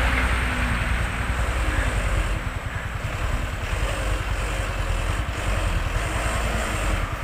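Diesel truck engine running with a steady low rumble.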